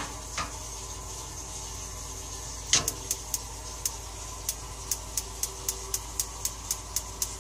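Propane tankless water heater's battery-powered spark igniter clicking about four times a second, a couple of single clicks first and the steady run starting about three seconds in. The burner does not light because no gas is being fed, a fault traced to nearly dead D-cell batteries.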